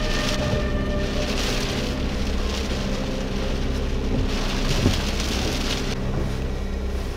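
Hurricane rain and wind hissing, swelling and easing in gusts, over a steady droning tone underneath.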